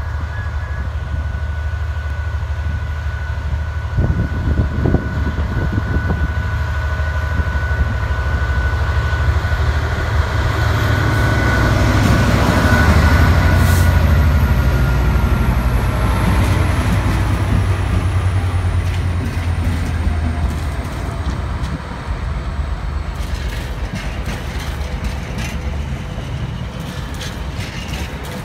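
Two Class 66 diesel locomotives, each with a two-stroke V12 engine, approaching and passing close by. The engine rumble and a high whine build to their loudest about halfway through, and the whine falls in pitch as they go by. In the last few seconds the wagons behind clatter over the rails with rapid clicks.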